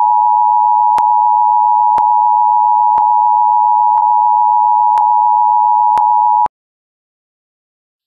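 Emergency Alert System attention signal: the steady two-tone alarm (853 and 960 Hz sounded together), held for about six and a half seconds and then cutting off abruptly, with faint clicks about once a second.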